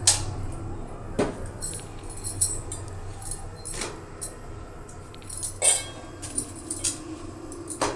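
Scattered clinks and knocks of metal kitchenware, as a steel roti container and cooking tools are handled, about seven separate strikes over a low steady hum.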